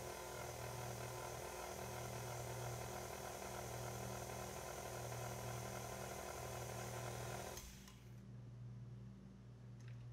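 Pink tilt-head stand mixer running steadily with its whisk beating meringue for macaron shells, then switched off abruptly about three-quarters of the way in. A few light clicks follow near the end.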